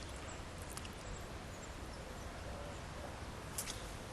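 Steady outdoor background noise of flowing river water with a low rumble, and a few faint clicks.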